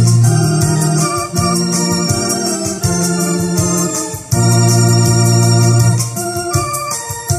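Electronic arranger keyboard playing a Catholic hymn tune on an organ voice: held chords over a bass line, with a light steady beat behind them. The sound dips briefly about four seconds in before the next chord comes in.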